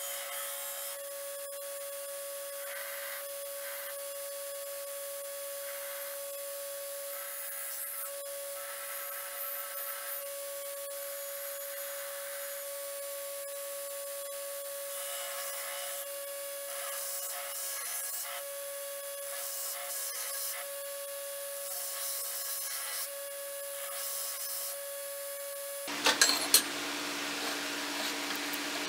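Belt grinder running with steel being ground against the belt, a steady whine over an abrasive hiss. About 26 seconds in the sound changes abruptly to a broader hiss with a few sharp knocks.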